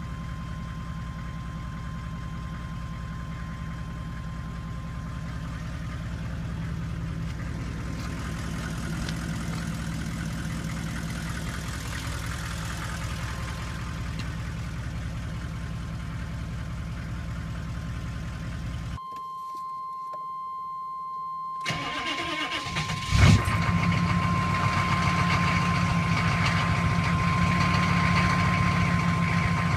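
Pickup truck engine idling steadily. After a cut, the engine is started about three-quarters of the way in with a sharp loud burst, then settles into a louder steady idle. A thin, steady high whine sits over the engine.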